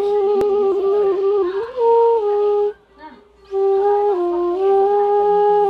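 Bansuri (bamboo transverse flute) playing a slow melody of long held notes, stepping between pitches with small slides, with a short break for breath about three seconds in.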